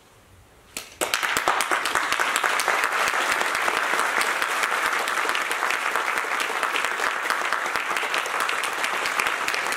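Audience applauding: the clapping breaks out about a second in and then holds steady.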